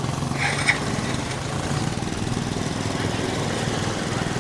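A small motorbike engine idling steadily with an even low putter. There is a brief high-pitched sound about half a second in.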